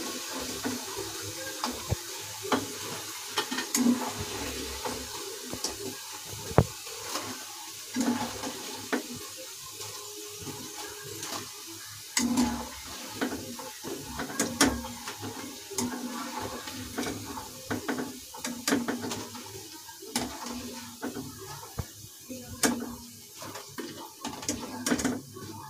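Soya chaap sizzling in hot frying oil in a nonstick kadai, with a metal mesh skimmer clinking and scraping against the pan and a steel plate as the fried pieces are lifted out.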